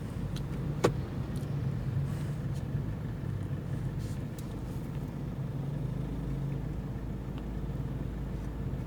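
Toyota Fortuner's 2KD-FTV four-cylinder turbodiesel and road noise heard from inside the cabin as a steady low drone. A single sharp click sounds about a second in.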